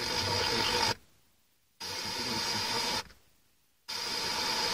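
Pioneer car radio's FM tuner stepped through the band. On each frequency there is about a second of hissing static, followed by a short mute while it tunes to the next. This happens three times.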